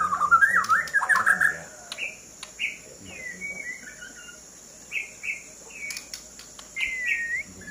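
White-rumped shama singing. A fast, loud run of warbled notes comes first, then short, spaced whistled phrases, with a falling phrase after about three seconds and a curved, rising-then-falling whistle near the end.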